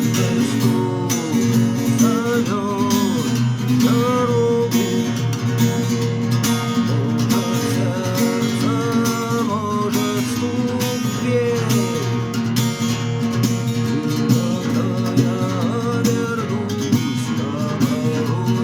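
A song with guitar accompaniment and a singing voice, played steadily.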